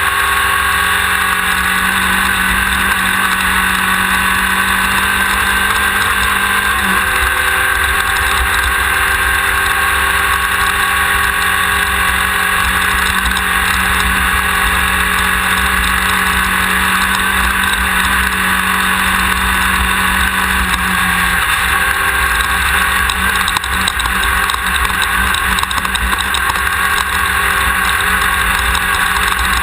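The air-cooled 1600 cc VW engine of a Class 1600 off-road race car runs hard at steady speed under a loud, constant wash of ride noise. Its pitch steps down slightly about a quarter of the way in and again about two-thirds of the way in.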